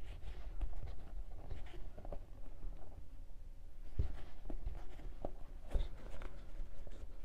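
Hands crocheting with macrame yarn: soft rustling and scraping of the yarn and hook as stitches are pulled through, with a few light knocks, the sharpest about four and six seconds in.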